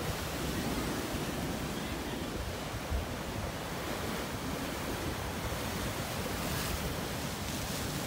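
Atlantic surf breaking against rocky ledges, a steady rush of water, with wind rumbling on the microphone.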